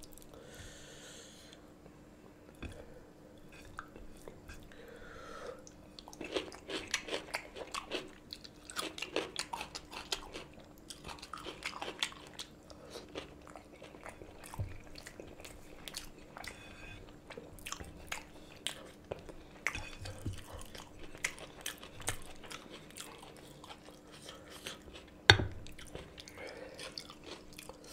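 Mouth sounds of a man eating rice with chicken and mutton curry by hand: wet chewing and smacking clicks in a quick, irregular run that thickens after the first few seconds, with one sharp knock near the end.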